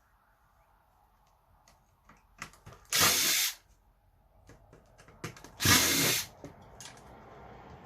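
Power drill or cordless screwdriver run in two short bursts of about half a second each, around three seconds and six seconds in, driving screws out of the computer's casing, with small clicks and knocks of handling between.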